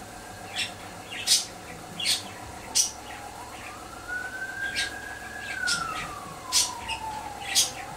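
A budgerigar makes short, sharp, high scratchy sounds roughly once a second while rubbing its head against a wooden perch. Behind them, a faint siren slowly rises in pitch from about three seconds in and falls again near the end.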